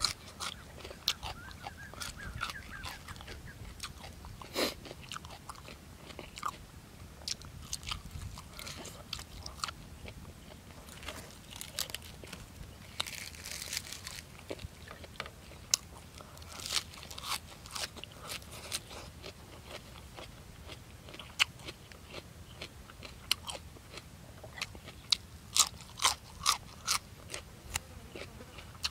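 Close-miked eating sounds: a person biting, chewing and crunching mouthfuls of boiled buffalo offal and raw vegetables, with wet mouth clicks. About halfway there is a short leafy rustle as a lettuce leaf is folded, and near the end the chewing falls into a regular rhythm of about two smacks a second.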